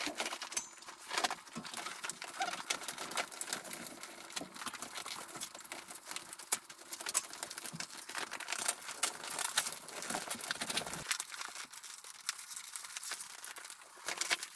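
Vinyl tractor-cab curtain being handled and fitted over the cab frame: irregular rustling, crinkling and light knocks. A faint low hum underneath stops abruptly about eleven seconds in.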